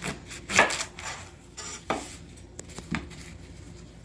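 A big kitchen knife chopping the end off an ear of corn in its husk: a few separate sharp knocks, the loudest about half a second in.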